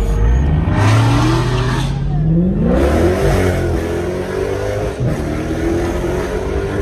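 Car engine accelerating: its pitch climbs for about three seconds, then holds steady at higher revs.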